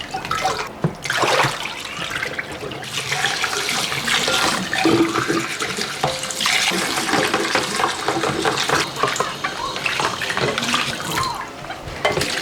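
Water running from a tap into a sink, with occasional knocks.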